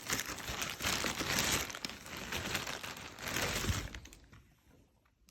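Crinkling and rustling of firework packaging, plastic wrap and cardboard, being handled. It stops about four seconds in.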